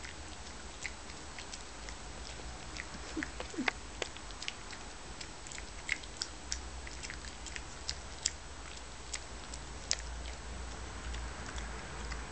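Boston Terrier chewing a dental stick: irregular sharp crunching clicks and mouth smacks as his jaws work.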